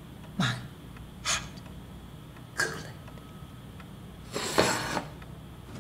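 A person's short breathy noises, three quick ones about a second apart, then a longer, louder breathy noise about four and a half seconds in.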